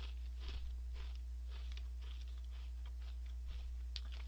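A mouthful of crunchy Gorae-bap whale-shaped snack crackers being chewed: a quick, irregular series of small crunches, several a second, over a steady low hum.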